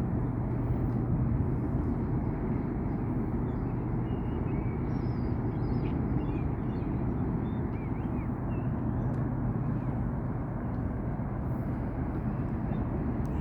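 Steady low rumble of the Stena Germanica ferry's machinery, with a constant low hum under a wash of wind-like noise. Faint high chirps come through now and then in the middle.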